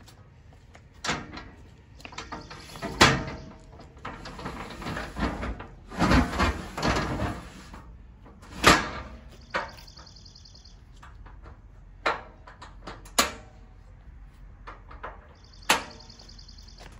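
Metal folding boarding ladder being folded up and slid into its stowage slot under the truck body: a string of sharp metal clanks, the loudest about three seconds in and again near nine seconds, with a scraping slide between them, then a few lighter latch clicks.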